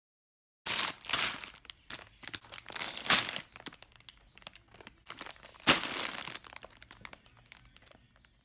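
Clear plastic LEGO parts bags crinkling as they are handled, starting under a second in, with sharp louder crackles about a second in, around three seconds and loudest near six seconds.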